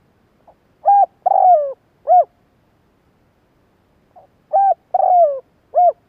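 Spotted dove cooing: two identical phrases, each a faint short note and then three coos, the middle coo the longest and falling in pitch.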